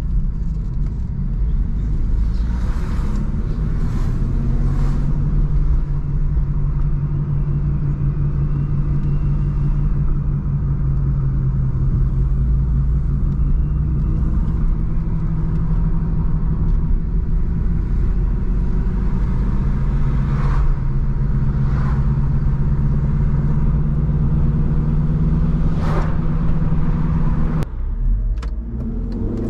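Cabin sound of a 1999 BMW 316i E46 under way: its four-cylinder petrol engine runs steadily with road rumble, broken by a few short knocks. Near the end the engine note drops for a moment, then rises again as the car picks up speed.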